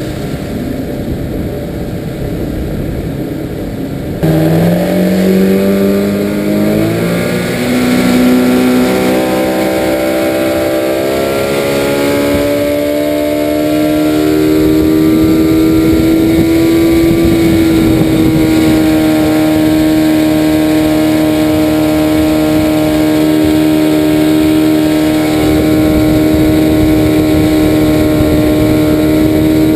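Outboard motor pushing a small aluminum skiff, over a rushing of wind and water. About four seconds in the engine note jumps louder and climbs steadily as it throttles up, then holds at a steady pitch for the rest of the time.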